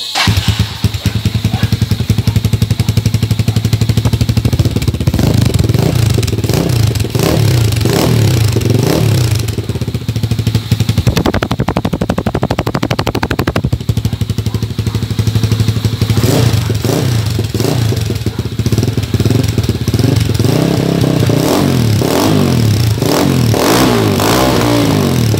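Motorstar Z200 motorcycle engine running through an Akrapovic-style carbon slip-on exhaust with its small inner silencer insert removed, idling and being revved repeatedly, the exhaust note rising and falling with each blip of the throttle.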